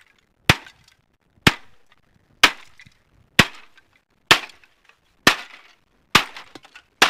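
Kershaw Camp 12 machete chopping into a plastic Sharp stereo unit: eight sharp chops about a second apart, each cracking and breaking the plastic casing.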